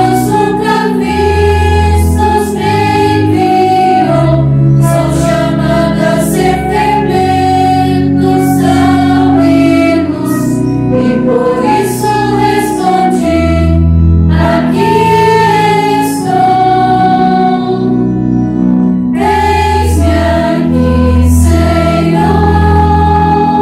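Choir of nuns singing a hymn, women's voices holding long notes that move from one to the next, over low sustained bass notes.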